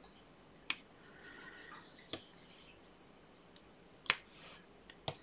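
Irregular small sharp clicks, about six: a diamond painting drill pen tapping round resin drills down onto the canvas and picking them from the plastic tray.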